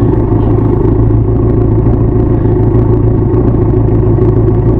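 Benelli TRK 502 parallel-twin engine and exhaust running at a steady cruise on the road, picked up close to the exhaust from a camera in the saddlebag; the engine note holds even, with no change in revs.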